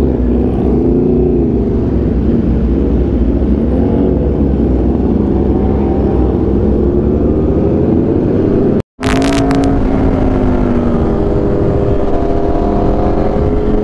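Aprilia RSV4 1100 Factory V4 engine through an SC Project exhaust, heard from the moving bike, its note rising and falling with the throttle. About nine seconds in the sound cuts out completely for a moment, then comes back holding a steadier note.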